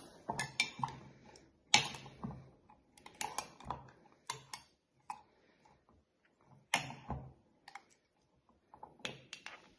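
A spoon stirring an overnight-oats mixture in a glass mason jar, clicking and tapping against the glass irregularly, with short pauses between strokes.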